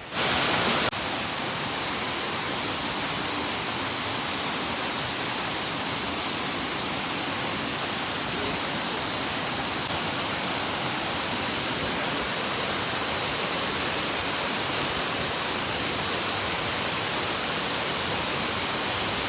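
A waterfall's steady rush of falling water, a dense even hiss across the whole range with no breaks, a little louder in the first second.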